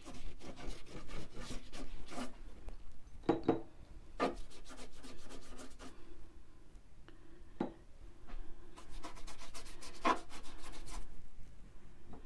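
Paintbrush dry-brushing thin metallic craft paint onto heavy Arches oil paper: scratchy bristle strokes rubbing back and forth across the paper, with a few sharper knocks and a quicker run of strokes toward the end.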